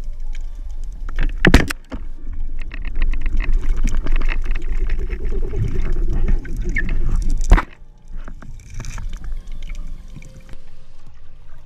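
Band speargun firing underwater: a sharp, loud crack about a second and a half in. Rumbling, gurgling water noise follows while the shooting line is hauled in against a speared mullet that pulls hard, and a second sharp knock comes about six seconds after the shot.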